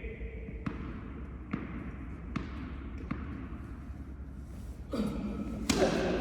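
A tennis ball bounced on the court four times, a little under a second apart, then a louder sharp hit near the end.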